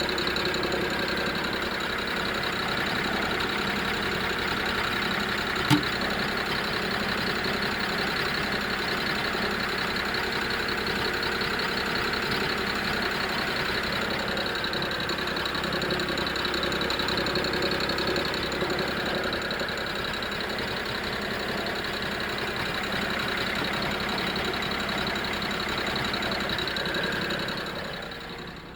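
BMW N53B30 3.0-litre inline-six running steadily with a rattling drone, with one sharp tick about six seconds in. The rattle came on suddenly together with a loss of power at low rpm, with no fault codes stored; the owner wonders whether the DISA intake valve is at fault.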